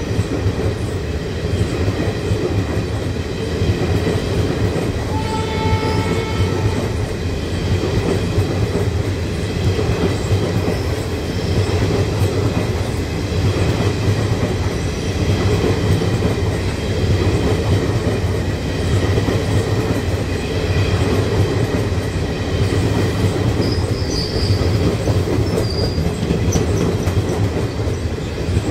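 Maharajas' Express passenger coaches rolling past at close range: a steady rumble of wheels on the rails, with faint high wheel squeal through much of it and a short pitched note about five seconds in.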